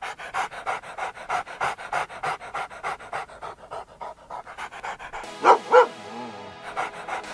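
A dog panting quickly, about three breaths a second. Partway through it breaks for two loud barks about a quarter second apart, then the panting resumes near the end over light music.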